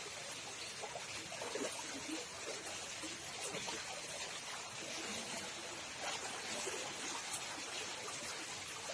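Flowing floodwater: a steady, even rushing hiss.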